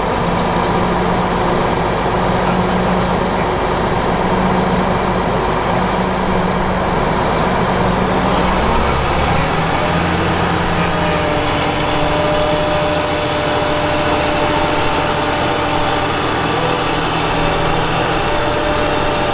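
Liebherr R954 crawler excavator's diesel engine running steadily under load as the machine tracks slowly forward onto a low-loader trailer. Its low hum changes pitch about halfway through.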